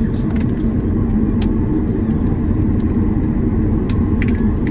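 Steady low rumble in the cabin of a Boeing 737-800 on the ground after landing, with a few light clicks over it, the clearest about a second and a half in and two near the end.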